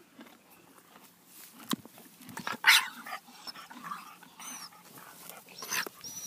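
Springer spaniel giving one sharp yelp about two and a half seconds in, then a few short high whines; the yelp is the dog being stepped on by a horse.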